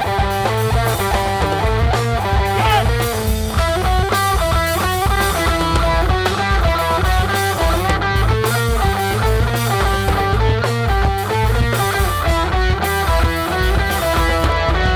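Rock band playing a heavy rock song: electric guitar over bass and a drum kit, loud and steady throughout.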